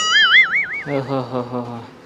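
Cartoon 'boing' sound effect: a springy tone that wobbles up and down about six times in under a second, then fades. A low, steady, voice-like drone follows for about a second.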